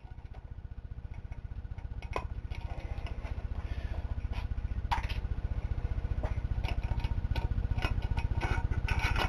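Scattered sharp metal clicks and clinks of hand tools and small clip parts against a Ford C4 transmission case, as the parking pawl actuator and its E-clip are worked off. Under them runs a low hum that grows louder.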